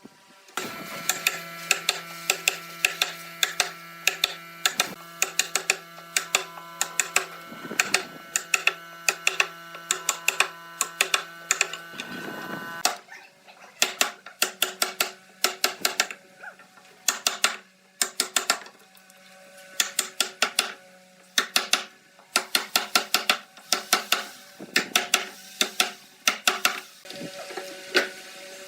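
Background music: held chords under a quick, regular clicking rhythm, the chord changing about halfway through.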